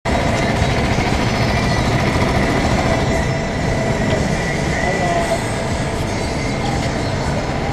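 Several rental go-karts running together on the grid inside a kart hall: a loud, steady engine drone with a faint held whine over it.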